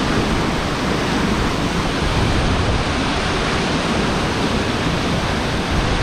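Loud, steady roar of a large waterfall crashing into its plunge pool, an unbroken rush of water.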